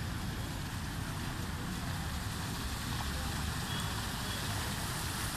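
Steady rushing noise of floodwater flowing across a street.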